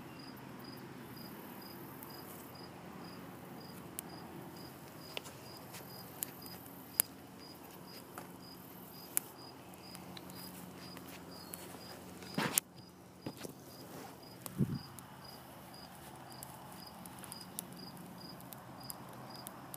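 A cricket chirping in a steady rhythm, about two to three chirps a second, over the sparse pops and crackles of kindling catching in a brick rocket stove. A louder snap about twelve seconds in, and a dull thump shortly after.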